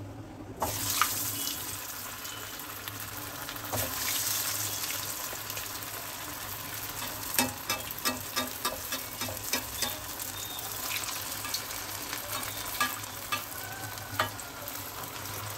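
Breaded egg chops (Bengali dimer chop) deep-frying in hot oil in a steel pan: a steady sizzle that starts about half a second in as they go into the oil. A metal spatula clinks against the pan several times while turning them, most often in the middle and once more near the end.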